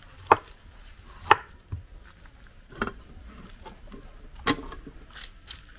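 Large kitchen knife slicing peeled plantain on a wooden chopping board: four sharp knocks of the blade striking the board, roughly one to one and a half seconds apart.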